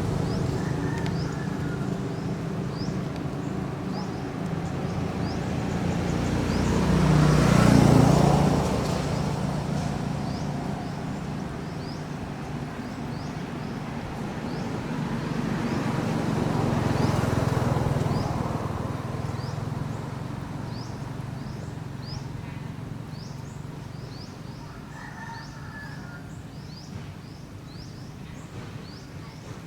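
Motor vehicles passing: one swells up and fades about eight seconds in, a second around seventeen seconds. Through it a short high chirp repeats about once a second.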